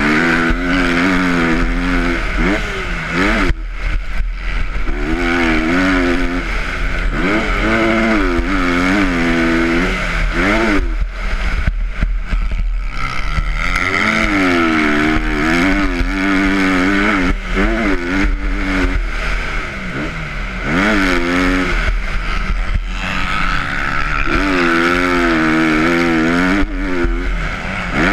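Motocross dirt bike engine heard close up from on the bike, ridden hard: the revs climb and fall over and over as the rider accelerates, shifts and backs off.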